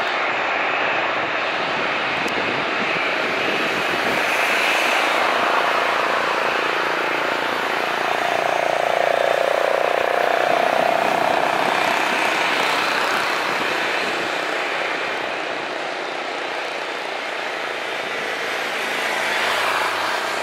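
Boeing 737 jet engines running on the runway: a steady, loud rush of jet noise, with a whine that swells and fades through the middle and a slight swell again near the end.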